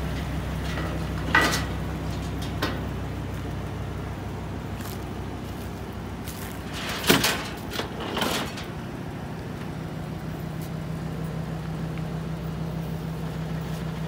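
Diesel engine idling steadily, with a few sharp metal clanks and rattles, the loudest about seven seconds in, as chains and a load binder are handled on a steel lowbed trailer deck.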